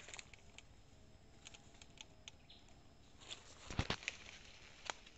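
Dry twigs and leaf litter crackling and snapping in scattered sharp clicks, with a cluster of louder cracks about four seconds in and another a second later.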